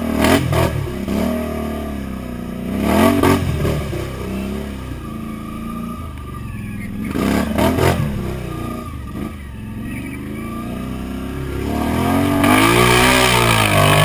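ATV engine revving under throttle as the quad is ridden through brush and mud, its pitch rising and falling: short revs near the start, about three seconds in and about halfway, then a longer, louder rev with a rushing noise near the end.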